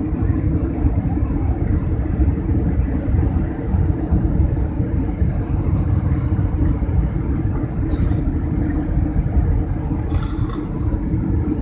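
Cabin noise of a jet airliner rolling on the ground, heard from a window seat: a steady low rumble of the engines and the wheels on the paved surface.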